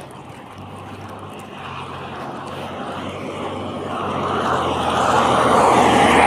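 A vehicle driving past on a wet road. The hiss of its tyres on the wet surface grows steadily louder and peaks near the end as it goes by.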